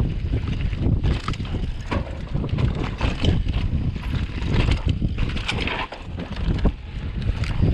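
Downhill mountain bike riding fast over rough dirt and rock: a steady rumble of wind on the microphone and tyres on the ground, broken by frequent short clatters and knocks from the bike on the rough trail.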